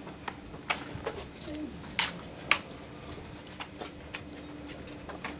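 Drill rifle being handled in an exhibition drill routine: a run of sharp, separate clacks from hands slapping and catching the rifle. The two loudest come about two seconds in, half a second apart.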